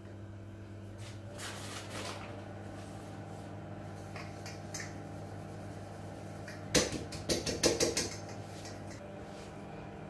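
A metal cake pan being knocked sharply six or seven times in quick succession, about two-thirds of the way in, to shake flour around the buttered tin and tap out the excess. A steady low hum runs underneath.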